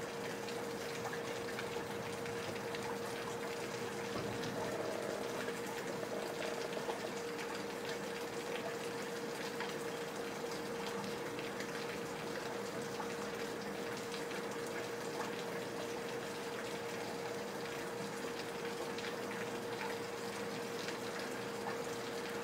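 Heavy rain falling steadily, with water splashing and running from leaky gutters, over a steady hum.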